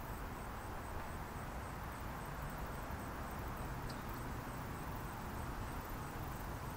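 Steady outdoor ambience: an even hiss over a low rumble, with no distinct events.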